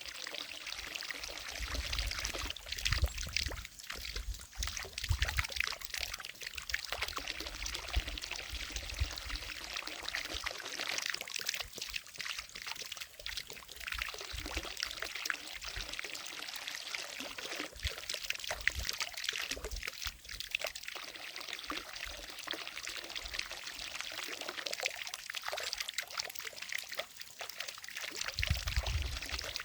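Fountain water falling and splashing into a pond in a steady, rippling trickle. Low rumbles come in a few seconds in and again near the end.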